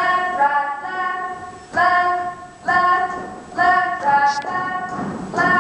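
Several voices singing a cappella in short repeated chords, a new one starting about every second.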